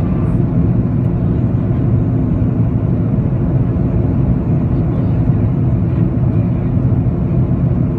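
Airbus A330-200 on approach, heard inside the cabin: a steady, low rumble of engine and airflow noise.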